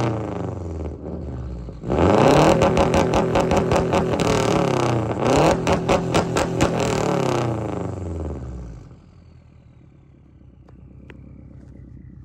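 Subaru Forester with a swapped-in Forester XT turbocharged flat-four, heard at the exhaust while it is revved in place. The engine drops back, jumps up sharply about two seconds in, holds high with a rapid stutter, dips and climbs again midway, then falls back to a quiet idle for the last few seconds.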